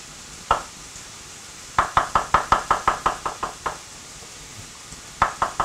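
Kitchen knife slicing brown mushrooms on a wooden cutting board, the blade knocking on the board: a single knock, then a quick run of about a dozen knocks at about six a second, and another run starting near the end.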